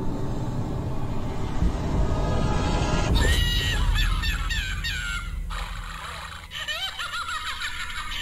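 Plush toy chattering in a high, squeaky warbling voice, starting about three seconds in and pausing briefly before it resumes. A low rumble comes before it.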